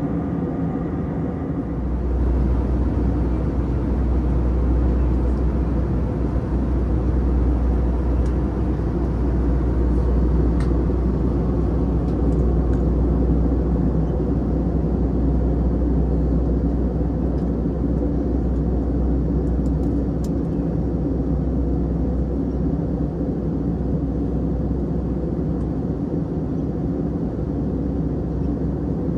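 Steady cabin noise of an Airbus A321-231 in cruise, heard from a window seat: the drone of its IAE V2500 engines and airflow over the fuselage, with a low rumble. The rumble grows louder about two seconds in, then holds steady.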